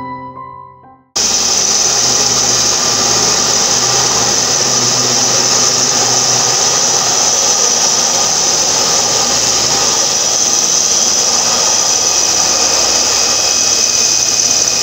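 Handheld power tool starting abruptly about a second in and running steadily with a high whine, its bit working against a metal part clamped in a vise.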